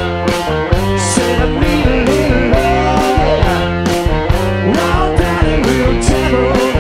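Live rock band playing a loud instrumental passage: drums keep a steady beat of about three hits a second under a bass line, while a guitar plays sliding, bent notes.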